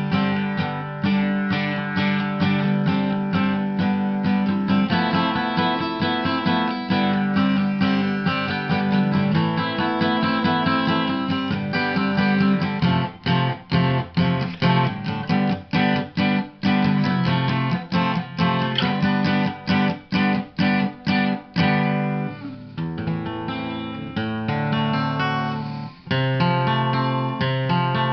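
Acoustic guitar music, picked and strummed at a steady pulse, with a stretch of short, clipped chords midway.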